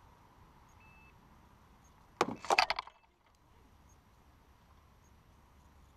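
A short burst of rapid clicking and rattling, a little over two seconds in, lasting under a second.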